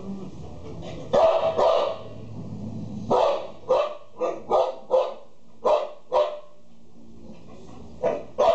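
A dog barking repeatedly in short, sharp barks: two about a second in, a quick run of about seven between three and six seconds, then two more near the end.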